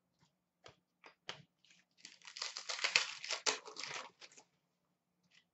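A hockey card pack's wrapper being torn open and crinkled by hand. A few light clicks and taps come first, then a dense tearing, crinkling rustle starts about two seconds in and lasts a couple of seconds.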